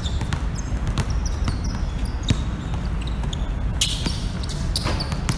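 Basketball being dribbled on an outdoor hard court: a few scattered sharp bounces over a steady low background rumble.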